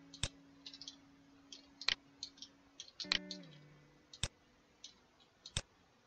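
Irregular sharp clicks of a computer mouse and keyboard during 3D modelling work, about a dozen in all, five of them louder.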